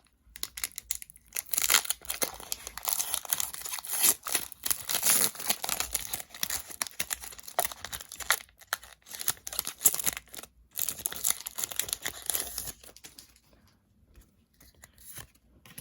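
Foil wrapper of a Pokémon TCG booster pack crinkling and tearing as it is opened, busy and crackly for most of the time, then dropping to a few faint light rustles near the end.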